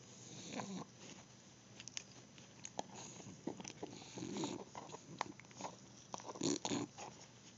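Bulldog chewing: irregular small clicks and smacks of its jaws, with a few louder bursts about half a second, four and a half and six and a half seconds in.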